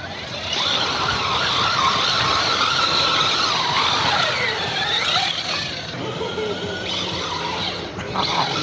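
A radio-controlled off-road car's motor and gearbox whining under throttle. The pitch wavers, sinks low about four seconds in, then climbs sharply again, before the whine eases off.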